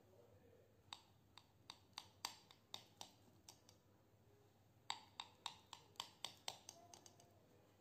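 Table knife sawing through a zucchini omelette on a plate: two runs of quick sharp clicks, about four a second, with a short pause in the middle.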